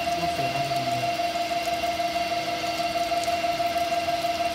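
Automatic cold-saw pipe cutting machine running with a steady high whine over a low hum, with no cut being made.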